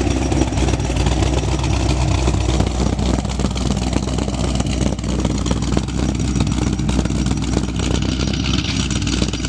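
Pontiac GTO's LS V8, freshly fitted with CNC-ported Trick Flow 225 heads and not yet tuned, running steadily through catless mid-pipes, an X-pipe and Borla XR1 mufflers. It is loud, and it still needs a tune.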